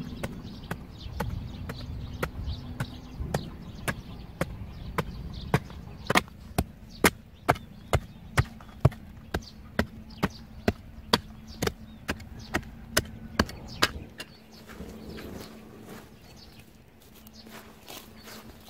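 Short-handled digging tool chopping into hard, dry soil, about two blows a second, the strikes growing louder midway. The blows stop after about fourteen seconds, giving way to soft scraping of loose earth by hand.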